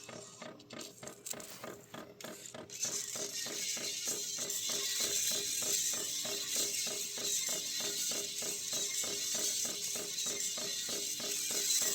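A steel Victor phonograph needle held by hand in the groove of a spinning 33 rpm record, with no tone arm or reproducer, playing faint, thin music under a rapid, even ticking. About three seconds in, a loud scratchy hiss comes in and stays: the needle scraping the record.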